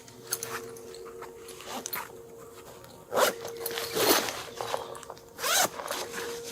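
A zipper pulled in a few quick strokes, with rustling in between; the last pull is the longest.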